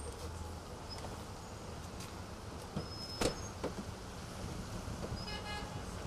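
Street traffic noise running steadily, with one sharp knock a little past three seconds in and a short, high toot near the end.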